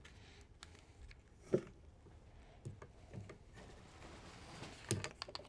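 Handling noise as a cable is worked through a gland into a plastic junction box: faint rubbing with scattered small knocks, the loudest about a second and a half in and a short cluster near the end.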